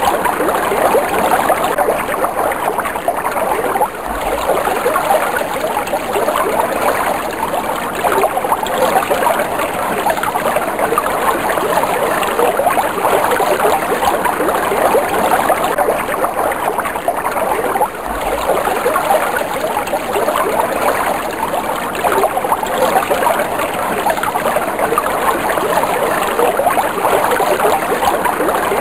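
Flowing water running steadily, a continuous dense splashing and gurgling, with a brief dip in level about four seconds in and again about eighteen seconds in.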